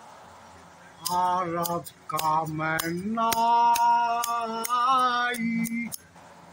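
A man singing in a drawn-out, chant-like voice, holding long steady notes, starting about a second in and stopping near the end, with sharp clicks among the notes.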